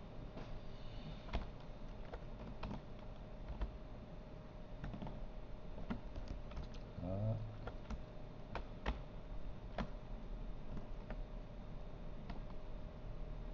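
Computer keyboard keys and clicks tapped at an irregular pace, over a faint steady hum, with one brief squeaky sound about seven seconds in.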